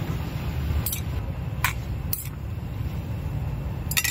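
A few sharp clinks of metal utensils, chopsticks against a small frying pan and a spoon against a steel bowl, over a steady low rumble.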